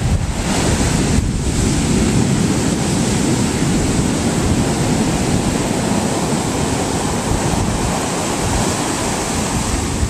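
Big ocean waves breaking and washing up the beach: a steady, loud rush of surf, with wind on the microphone.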